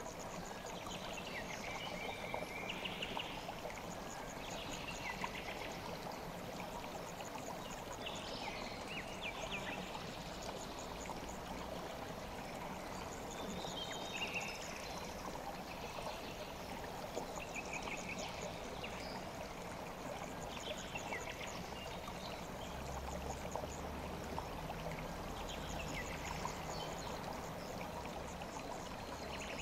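Kükü river water flowing steadily, a continuous even rush, with short high chirps every few seconds.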